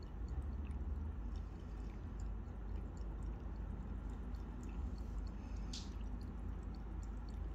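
Cat lapping water from a small glass fish tank: faint wet laps in quick succession, with one sharper click near the end.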